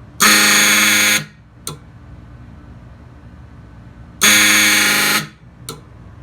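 Fire alarm horn sounding two loud, buzzy blasts about a second long, about four seconds apart. Each blast is followed by a brief faint blip.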